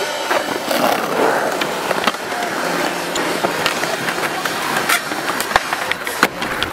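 Skateboard wheels rolling on a concrete skatepark surface, with a few sharp clacks of the board near the end as the skater pops an air over a brick hip.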